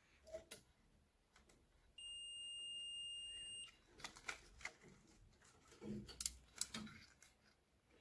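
Digital multimeter's continuity beeper sounding one steady high beep for under two seconds, about two seconds in: the top microwave door interlock switch is conducting. A few faint clicks and taps of handling follow.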